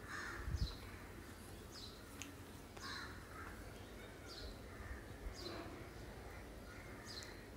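Faint bird calls: short high chirps falling in pitch, repeating about once a second.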